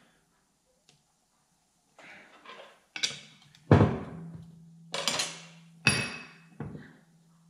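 Metal clanks and knocks from a differential carrier and its gears being handled and set down on a steel workbench. There are about five sharp knocks in the second half, one with a brief metallic ring.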